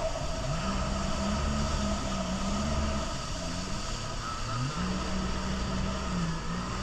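Jet ski engine running under way, its pitch climbing in at the start, dipping about three seconds in and rising again near five seconds as the throttle changes, over a steady rush of wind and water.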